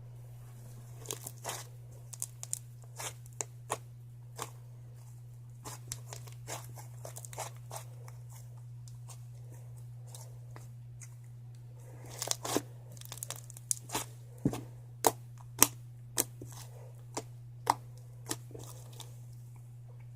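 Slime being squeezed and stretched by hand, giving irregular sharp crackling pops and clicks that come thicker and louder in the second half.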